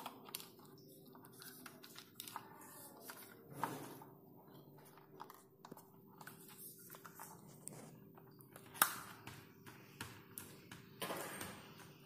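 Faint clicks, taps and rustling as hands handle plastic and metal pipe fittings at a water heater's inlet and outlet connectors, with one sharper click about nine seconds in.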